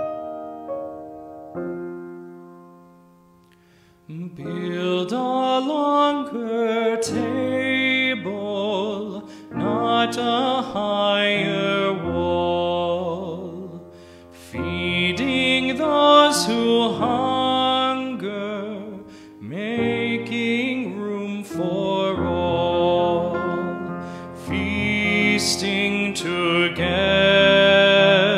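A man singing a hymn to his own grand piano accompaniment. Piano chords fade out over the first few seconds, then about four seconds in his voice comes in over the piano.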